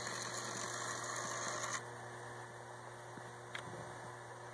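Z-scale model train running along its track: a faint steady electric hum, with a hiss that drops away about two seconds in.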